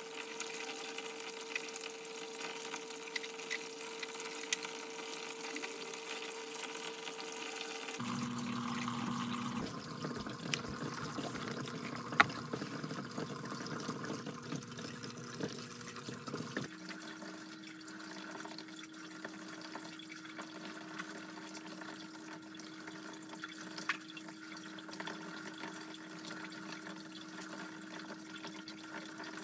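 Water trickling and splashing through PVC hydroponic channels, fed in through tubing, over a steady hum that changes pitch abruptly twice. There is one sharp click about twelve seconds in.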